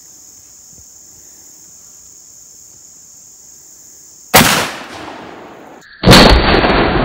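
Crickets trilling steadily, then two loud bangs about a second and a half apart, the second with a long echoing tail. The sound source is a single-shot NEF 12-gauge shotgun firing a heavy 440-grain hollowpoint slug.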